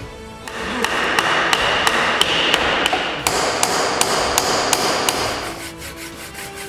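Quick, evenly spaced hammer blows, about three a second, over a steady rushing noise; both stop about a second before the end.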